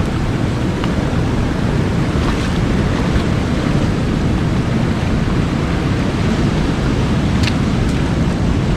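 Sea surf washing into a coastal gully, with wind buffeting the microphone as a steady low rumble. A single faint click comes near the end.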